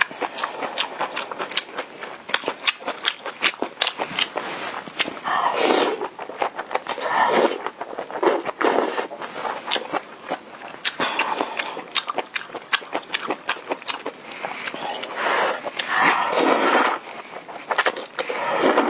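Close-up eating sounds of rice noodles: a dense run of small wet mouth and chopstick clicks, broken by several loud slurps of noodles, each half a second to a second or more long.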